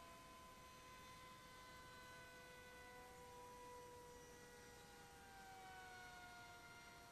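Faint, distant whine of a small RC pylon racer's brushless drone motor and 3D-printed propeller in flight, its pitch sliding down, then up, then down again as the plane circles.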